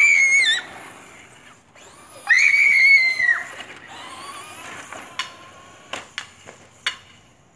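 A child's high-pitched screams, twice: a short one at the start and a longer held one of about a second from about two seconds in. A run of sharp clicks and knocks follows near the end.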